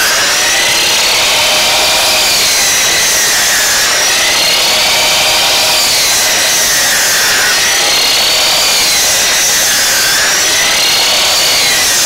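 Ridgid 12-inch miter saw running with a Diablo 44-tooth general-purpose blade, cutting through a pine 2x8. Steady saw noise with a whine that wavers up and down as the blade works through the wood.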